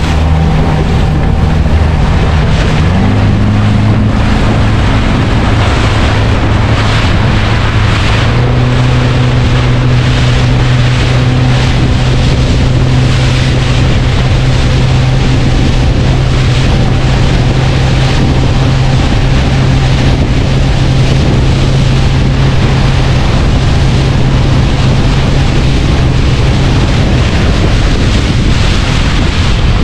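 Small fishing boat's engine running under way, its pitch stepping up about 3 s in and again about 8 s in as the throttle opens, then easing off near the end. Wind on the microphone and rushing water run underneath.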